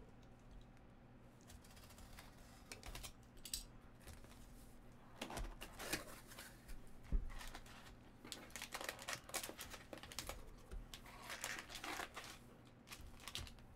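A cardboard box being opened by hand, its sides and lid scraping and rustling, with one dull knock about seven seconds in. Then a foil-wrapped stack of trading cards crinkles as it is handled and lifted out.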